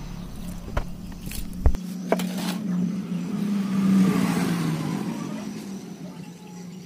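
Water poured from a plastic dipper splashing onto a rose stem and potting soil, with a few sharp clicks early on. Then a motor vehicle passes, swelling to its loudest about four seconds in and fading, over a steady low hum.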